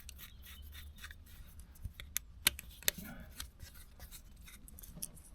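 Small hand tools clicking and rubbing against an electrical plug and cable during wiring of its terminals, with three sharp clicks about two to three seconds in.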